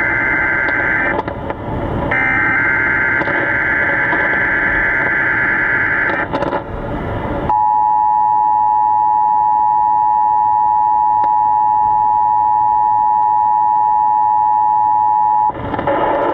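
Emergency Alert System signal over a weather radio, announcing a hurricane warning. It opens with warbling digital data bursts in the first six seconds, then gives about eight seconds of the steady two-tone attention signal, which cuts off near the end.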